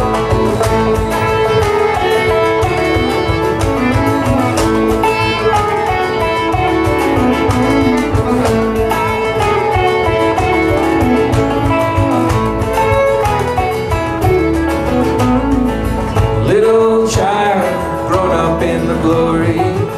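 Live acoustic string band playing an instrumental break: bowed fiddle and acoustic guitar over picked banjo, upright bass and washboard.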